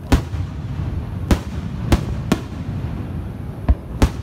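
Aerial fireworks shells bursting overhead: about six sharp bangs at irregular intervals, with a low rumble between them.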